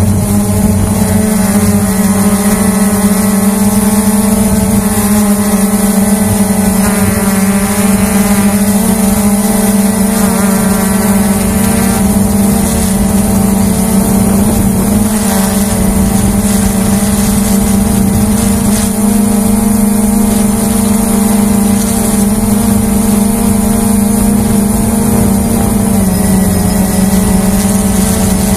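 Hubsan H109S quadcopter's motors and propellers running in flight, heard close up from the drone's own camera: a loud, steady buzzing hum with a whine of overtones, its pitch stepping up slightly near the end.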